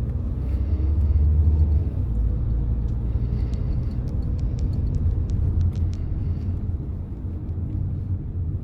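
Car interior road and engine noise while driving: a steady low rumble, with a run of faint light ticks around the middle.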